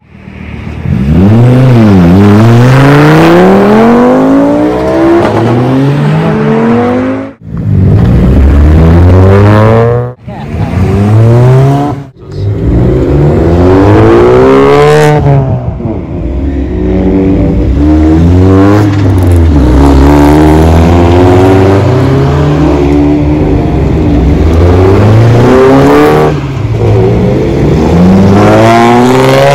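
Modified cars accelerating hard away one after another, their engines revving up through the gears, the pitch climbing and dropping back at each shift. The sound breaks off sharply a few times between cars.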